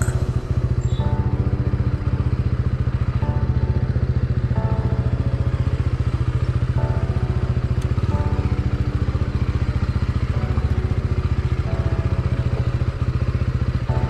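Mahindra Mojo 300's single-cylinder engine running steadily at low revs while the motorcycle rolls slowly along a rough dirt track.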